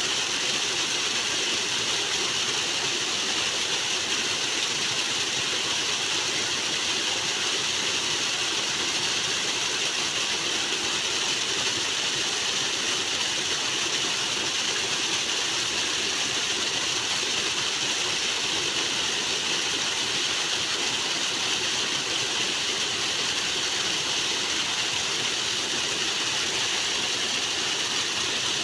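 Loud, steady rush of flowing water, unchanging throughout.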